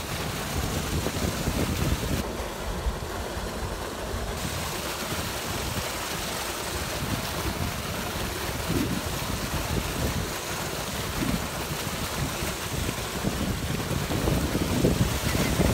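Steady churning of water from a pond aerator boiling up at the surface, with wind rumbling on the microphone.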